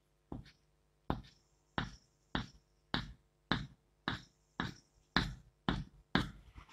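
Chalk on a chalkboard drawing a dashed line: about eleven short strokes in an even rhythm, a little under two a second.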